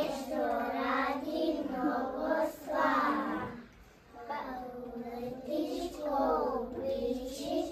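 A group of young children singing a song together, with a short break between lines about three and a half seconds in.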